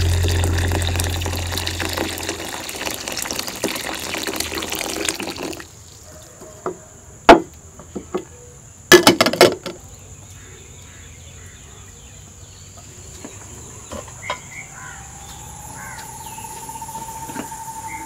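Water poured into a glass bowl of purple long beans, splashing steadily for about five seconds and then stopping. A few sharp knocks follow, the loudest about two seconds later, and then a steady high chirring of insects.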